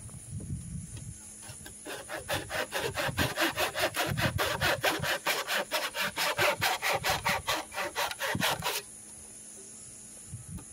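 Hand saw cutting through the rest of a wooden fence post: fast, even back-and-forth strokes, several a second, starting about two seconds in and stopping near nine seconds.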